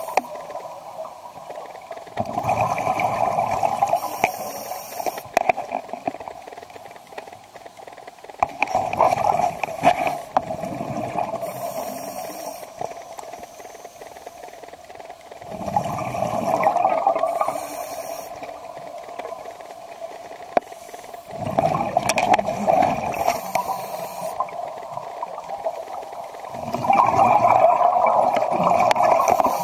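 Scuba diver breathing through a regulator underwater: five bursts of exhaled bubbles gurgling, about one every six seconds, with a short hiss of the regulator between them.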